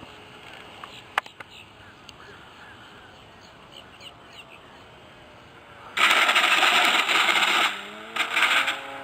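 Faint bird chirps, then about six seconds in a loud rushing noise that stops after a second and a half and comes back briefly, as a radio-controlled model airplane's engine starts to climb in pitch near the end.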